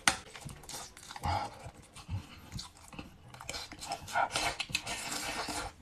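A person eating close to the microphone: chewing and smacking on mouthfuls of braised beef and rice, with short breathy puffs of air between bites.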